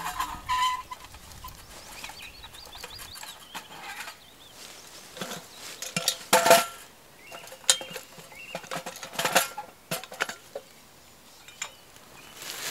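Metal cookware clinking and clanking as a cook pot and its lid are handled and set onto a folding metal twig stove: a string of sharp knocks with a brief ring, the loudest about halfway through. Faint birdsong early on.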